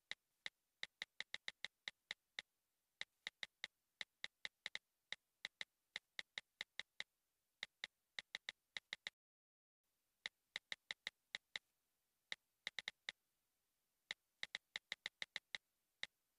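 iPhone on-screen keyboard clicks from text messages being typed: quick, irregular taps, several a second, with a brief pause about nine seconds in.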